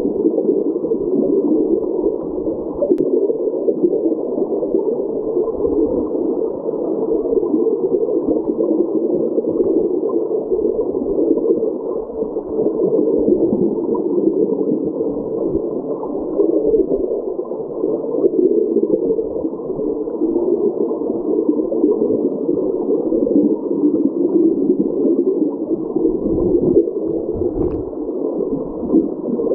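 Creek current rushing and churning, heard underwater through a submerged camera: a steady, muffled rush with no high end.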